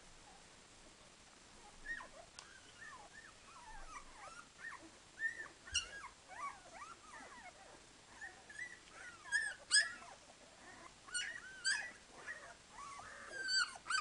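Twelve-day-old Dalmatian puppies squeaking and whimpering: many short cries that bend up and down in pitch, overlapping from about two seconds in, with a few sharper, louder squeals.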